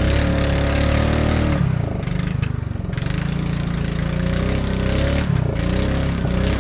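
Motorboat engine running at speed, its pitch dipping briefly and picking up again twice.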